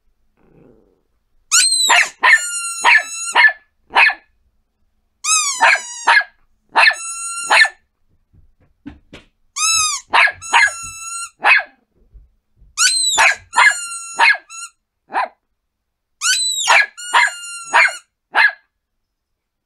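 Yorkshire terrier barking in five bouts of quick, high-pitched yaps, several to a bout, with short pauses between bouts.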